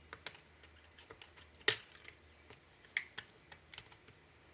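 Scattered light clicks and taps from small laptop parts being handled and pried during disassembly, with sharper clicks near the middle and about three seconds in.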